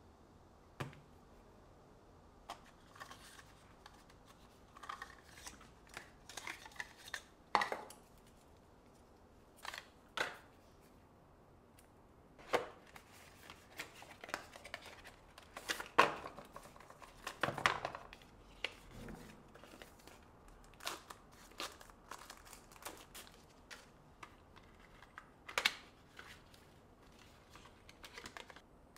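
Unboxing handling noises: irregular taps, clicks and short rustles of cardboard packaging and a phone case being handled, with a few sharper knocks.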